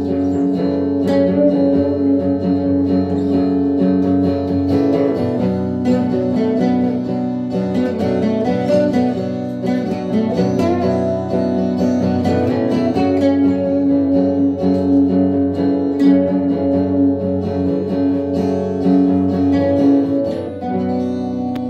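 Two acoustic guitars strumming chords while a harmonica plays a melody of long held, bending notes over them.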